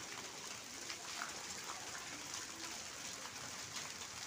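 Heavy rain mixed with hail falling on a paved courtyard: a steady hiss of rain with scattered sharp ticks of drops and hailstones striking.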